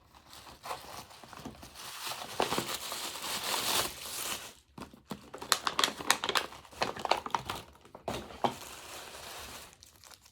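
Gift-wrapping paper crinkling and rustling as a present is unwrapped: a steady rustle over the first few seconds, then a run of sharp crackles.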